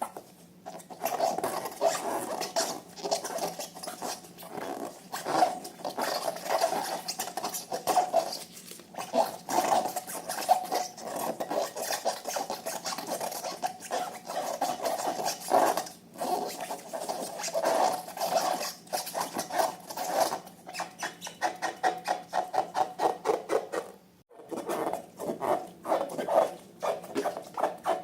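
Slime being squished and kneaded by hand, a rapid run of sticky crackling and popping clicks that comes in clusters. There is a brief pause near the end.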